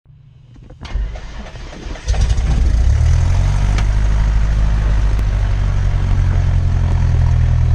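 A Cessna 172's engine heard from inside the cabin, being started: brief cranking, catching about two seconds in, then running steadily.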